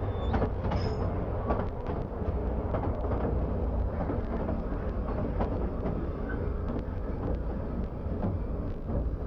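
Underground colliery mine train running along the rails through a tunnel: a steady low rumble with irregular clicks and knocks from the wheels on the track.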